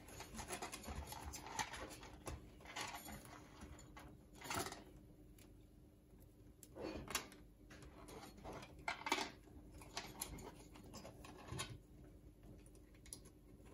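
Faint rustling and small clicks of wires being handled and twisted together inside an opened ATX computer power supply, with a few sharper clicks, over a faint steady hum.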